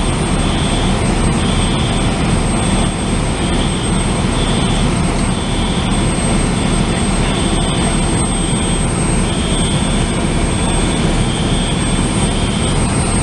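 Apartment building fire alarms sounding: a loud, continuous blare with a high beeping tone pulsing about once a second.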